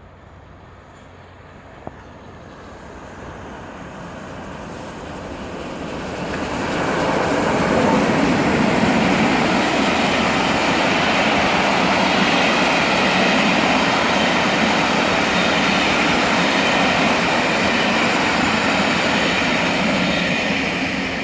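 Steam-hauled train, LNER A1 Peppercorn 4-6-2 60163 Tornado and its coaches, passing through the station at speed: the rumble of wheels on rail builds over several seconds, stays loud for about a dozen seconds as the train goes by, with some wheel squeal and clickety-clack, then begins to fade near the end.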